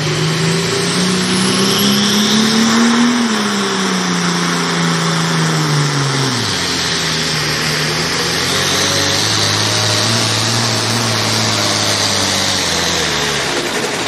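Turbocharged diesel engine of a Light Pro Stock pulling tractor working under full load as it pulls the sled. The engine note climbs over the first few seconds, drops away about six seconds in, then runs on at lower, steadier revs before sagging again near the end.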